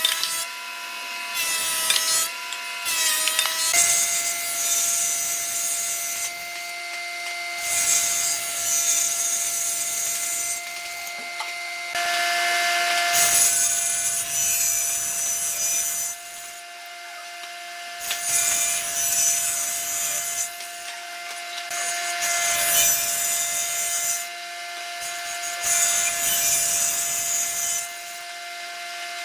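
A thickness planer runs with a board feeding through, then, after a few seconds, a table saw runs with a steady motor whine. Its blade makes repeated noisy cuts through wooden boards pushed across it on a sled, several times over.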